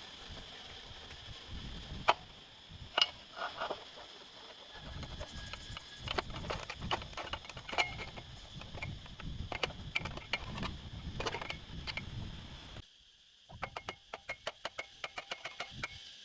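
Irregular knocks and clicks of hand work on motorbike engine parts over a low background rumble. After a sudden cut near the end, music with a quick wood-block beat begins.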